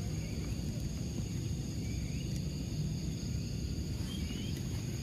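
Outdoor rural ambience: insects trilling steadily at a high pitch, with a few short rising bird chirps, over a steady low rumble.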